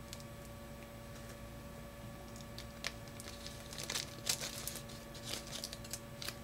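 Faint scattered clicks and light rustling from a piston ring being handled by hand, more frequent in the second half, over a low steady hum.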